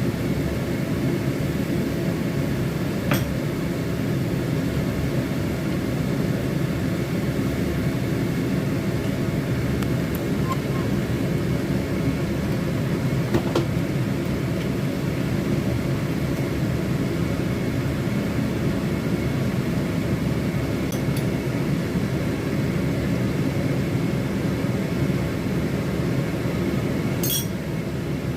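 Steady low mechanical hum of kitchen cooking equipment running, with a few light clinks of a utensil on cookware.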